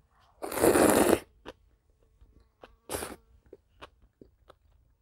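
A loud slurp of cheese-coated ramen noodles lasting about a second, then a second, shorter burst of air about three seconds in, and soft chewing and lip-smacking clicks.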